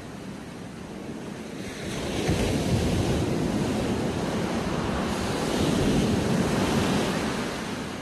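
Ocean surf breaking onto a sandy beach and rocks: the wash swells about two seconds in as a wave crashes and runs up the sand, then eases near the end.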